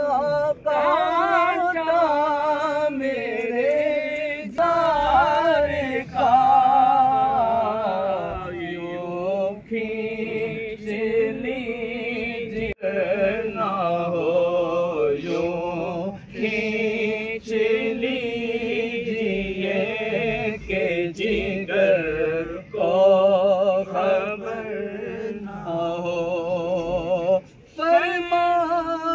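A voice singing a devotional naat, with long wavering held notes and brief pauses between phrases.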